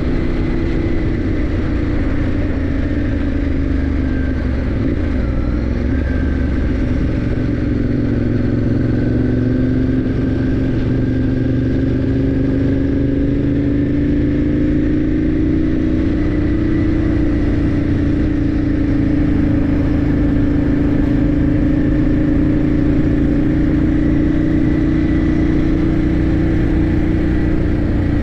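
Motorcycle engine running under way at road speed, with steady wind and road rush. The engine note dips a few seconds in, then slowly rises and holds steady.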